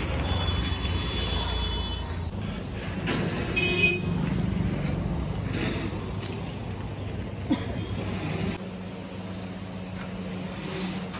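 Tractor engine running steadily, a low hum that drops in level about eight seconds in, with a short higher tone about four seconds in.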